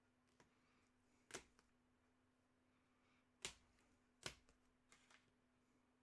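Trading cards being handled on a table: three sharp clicks or taps, about a second and a third in, around three and a half seconds and just past four seconds, with a few fainter ticks between, over a faint steady electrical hum.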